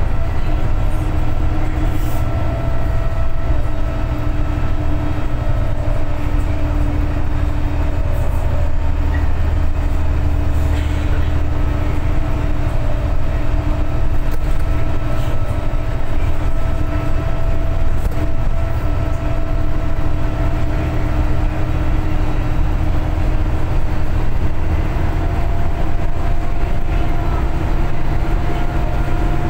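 VDL SB200 single-deck bus's diesel engine and driveline heard from inside the passenger saloon while under way: a steady low rumble with a whine that climbs slowly in pitch near the end as the bus gathers speed, and a few light interior rattles.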